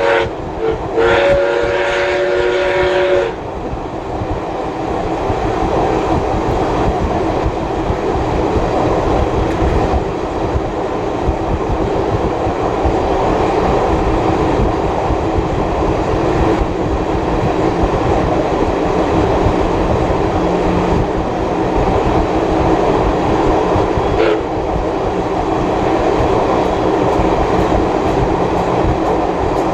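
Baldwin-built steam locomotive 5917's whistle sounding a chord, breaking off just after the start and sounding again for about two seconds. After it stops, the steady rumble and rattle of the carriages running along the track.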